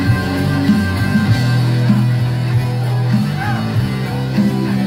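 Live rock band playing: electric guitar and drums over sustained low notes.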